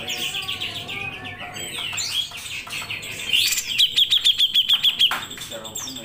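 Caged grey-cheeked bulbul (cucak jenggot) singing a varied song of chirps and glides. About halfway through it breaks into a loud, fast run of repeated high notes, about eight a second, that stops abruptly.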